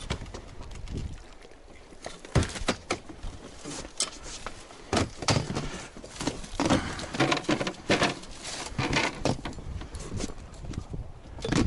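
Landing net brought aboard an inflatable boat and handled with a freshly caught lenok in it: a run of irregular knocks, thumps and rustles from the net frame, mesh and boat.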